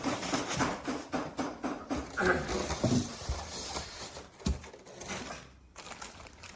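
Objects being handled: a quick run of rustling clicks, then a few separate dull knocks.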